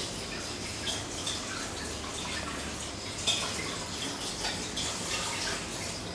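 Tap water running into a kitchen sink while dishes are washed, with scattered light clinks of crockery, the sharpest about three seconds in.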